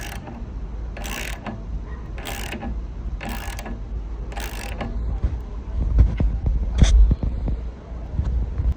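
Construction work sounds on a deck build: four short noisy strokes about a second apart, then a quick run of sharp knocks and clacks over a steady low rumble. The sound cuts off abruptly at the end.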